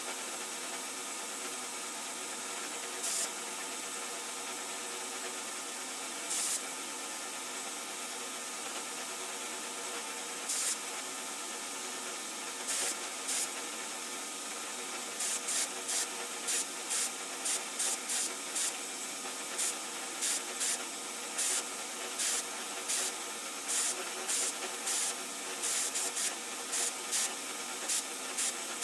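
Milling machine cutting a cold-rolled steel jaw blank with an end mill, under a steady hiss of coolant spray from the flexible nozzle and a faint steady machine hum. Short spurts of sharper hiss break in a few times in the first half, then about one or two a second from halfway on.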